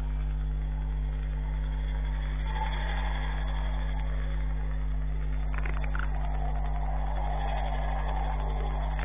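Steady low electrical hum with street traffic going past, heard through a CCTV camera's microphone; a brief higher noise comes about five and a half seconds in.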